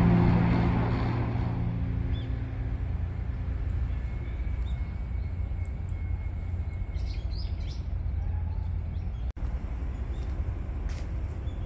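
Background music fading out over the first couple of seconds, then outdoor ambience: a steady low rumble of distant traffic with a few short bird chirps about seven seconds in.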